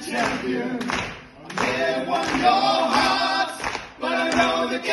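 A group of men singing together a cappella in harmony, in phrases broken by short breaths, with some hand clapping.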